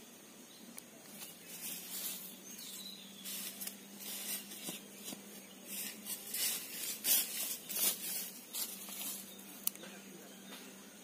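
Irregular rustling of grass and foliage, busier from about a second and a half in, with a few light ticks and a faint steady hum underneath.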